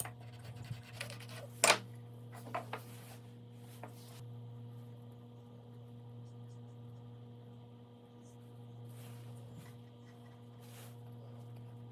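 A steady low electrical hum with a few sharp clicks or knocks, the loudest about a second and a half in and a couple of lighter ones soon after.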